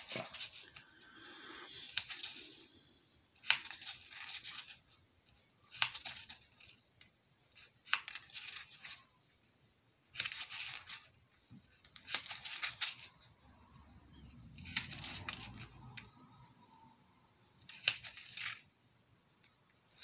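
Pencil point scratching into the edge of a white craft disc in short strokes, about a dozen of them a second or two apart, pressing brick-joint indentations into it.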